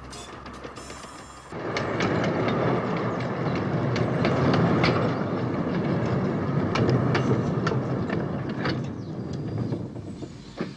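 Miniature railway train running on its track, a steady rumbling rattle with irregular clicks of the wheels over the rail joints. It starts abruptly about a second and a half in and eases off near the end.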